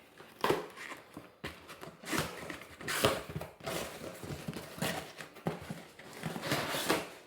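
Cardboard shipping box being cut open with a knife and its flaps pulled apart: irregular scrapes, knocks and rustling of the packing.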